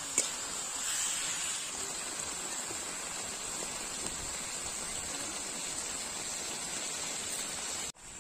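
Chicken pieces sizzling steadily as they fry with masala in hot mustard oil in a karahi, with a single sharp click near the start. The sizzle stops abruptly just before the end.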